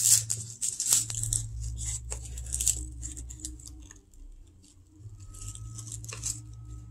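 Crisp baked phyllo crust crackling and crunching as a metal serving spoon cuts through it and lifts out a piece. The crackles are thickest in the first few seconds, fewer in the middle, with another short run near the end.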